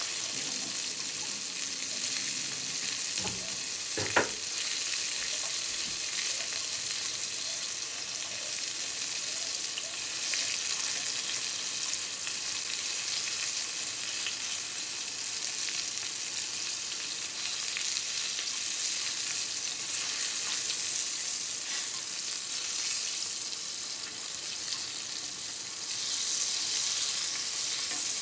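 Vegetable slices shallow-frying in oil in a small frying pan: a steady sizzle, with one sharp click about four seconds in. Later, chopsticks turn the pieces in the pan.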